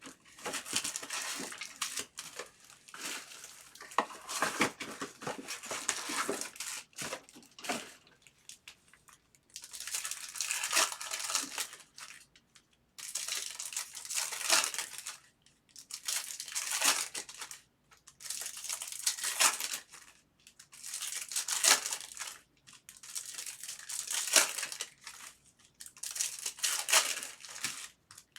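Crinkling and tearing of trading-card pack wrappers being handled and torn open, in repeated bursts a second or two long with short pauses between them.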